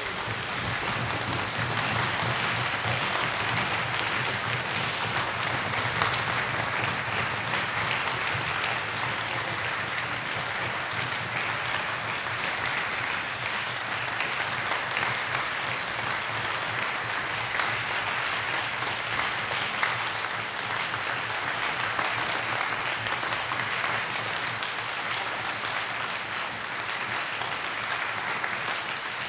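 Audience applauding steadily, joined by orchestra players clapping, after the final chord of a cello concerto.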